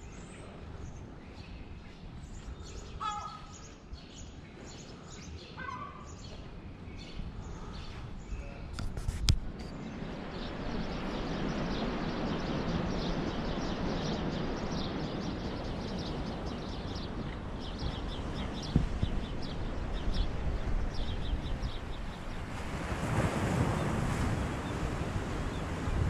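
Outdoor ambience: small birds chirping over a quiet background. About nine seconds in, a click at a cut gives way to a louder, steady rush of wind, with birds still chirping throughout.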